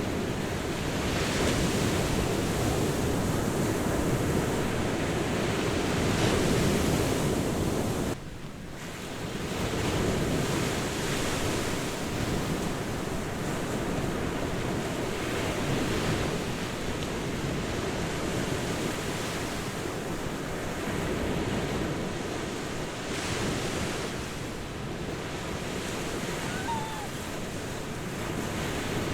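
Ocean surf on a beach: waves breaking and washing in a continuous rush, swelling every few seconds, with some wind on the microphone. The level drops abruptly for a moment about eight seconds in, then the surf returns.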